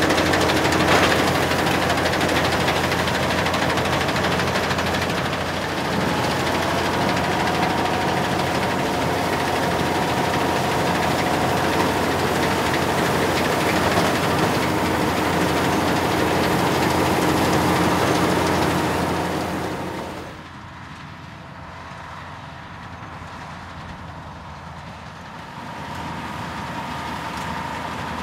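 New Holland 8050 combine harvester running, its six-cylinder engine and machinery giving a loud, steady mechanical noise with held whining tones over it. About twenty seconds in the sound drops away to a much quieter level, then rises somewhat again near the end.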